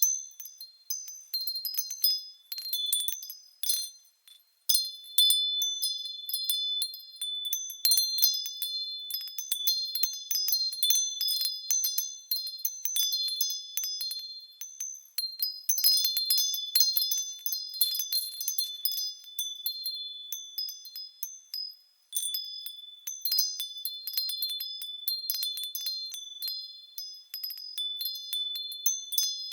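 Japanese furin wind chimes ringing in the wind: rapid, irregular clusters of high, bright strikes whose clear tones ring on, with a couple of brief lulls.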